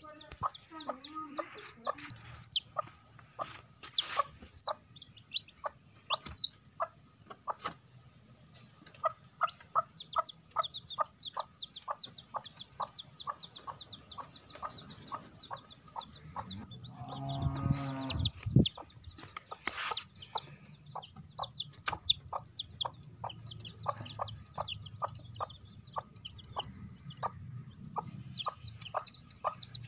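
Broody hen and her chicks in a wooden coop. The hen clucks softly about twice a second, the chicks give a few sharp falling peeps near the start, and a steady high-pitched hum runs underneath.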